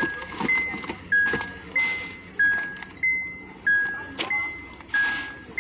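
A car's electronic warning chime repeating steadily, alternating a higher and a lower note, a new note about every two-thirds of a second, each one struck and fading.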